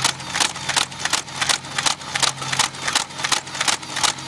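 Nerf Vulcan EBF-25 dart blaster firing on full automatic: an even run of sharp shots, about three a second, over the steady hum of its motor drive.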